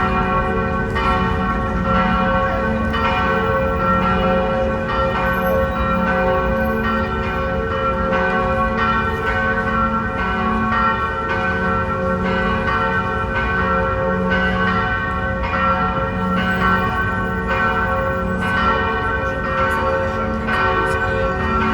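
The church bells of St. Ludmila's in Prague ringing a peal: several bells struck over and over, their tones overlapping in a continuous ringing.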